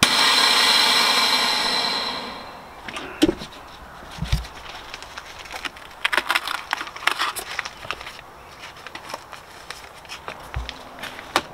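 Chamber vacuum sealer hissing loudly as air rushes back into the chamber, fading out over about two seconds. Then scattered crinkles and clicks of the vacuum-sealed plastic bag being handled.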